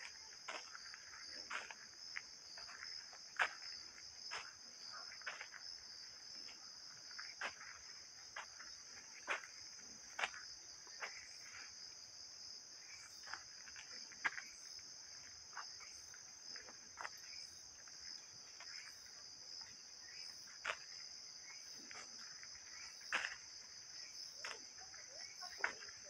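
A steady, high-pitched chorus of insects, with a person's footsteps on a dirt and dry-leaf forest path about once a second.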